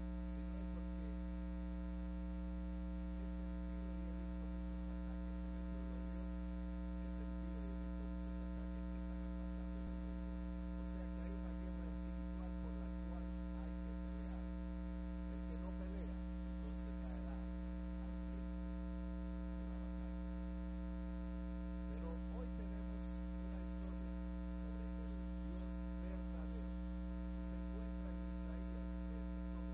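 Steady electrical mains hum, a low buzz with a ladder of overtones that does not change, covering the audio feed; a voice is only faintly there beneath it.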